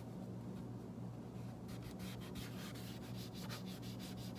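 Quick repeated rubbing strokes on the casing of a Skullcandy portable speaker, scrubbed clean by hand, over a steady low hum.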